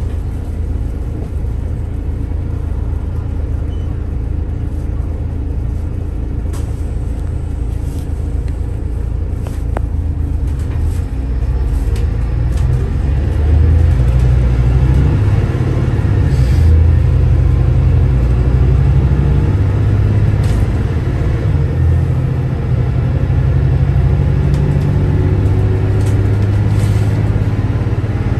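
Volvo B8RLE city bus's diesel engine and ZF Ecolife automatic gearbox under way, a steady low rumble that grows louder about halfway through as the bus pulls harder. A few light clicks are heard over it.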